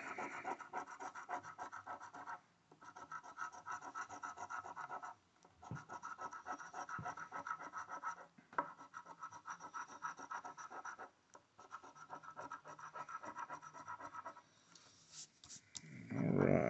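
A coin scratching the coating off a Texas Lottery Money Multiplier scratch-off ticket on a tabletop: quick repeated back-and-forth strokes in runs of about three seconds, with brief pauses between them.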